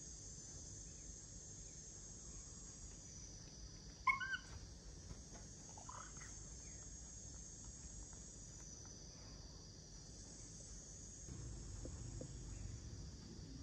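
A baby monkey gives a short, high squeak about four seconds in, and a fainter one about two seconds later, over a steady high hiss.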